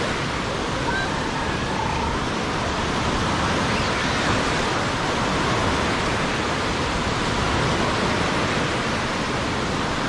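Steady rushing noise of surf breaking on a beach.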